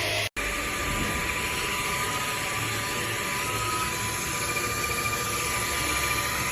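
Russell Taylors Vortex cordless vacuum cleaner's 500W brushless motor running: a steady airy rush with a high, even whine. It breaks off for an instant near the start.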